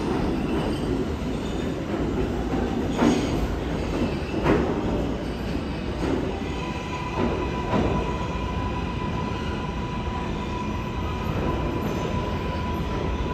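R142A subway train running, heard from inside the car: steady rumble of wheels on rail with a few sharp knocks over rail joints, and a steady high whine that sets in about seven seconds in.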